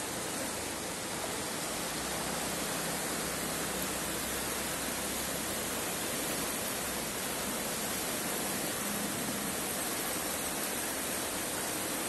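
Steady rushing of a fast river flowing over shallow rapids and rocks, an even hiss of moving water with no breaks.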